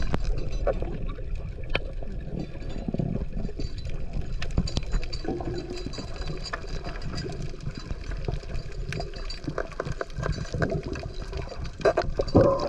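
Underwater water rush and bubbling with scattered faint metallic clinks, a weird noise like metal clinking around. It is the sign of the boat's anchor, its zip ties broken, coming loose and dragging.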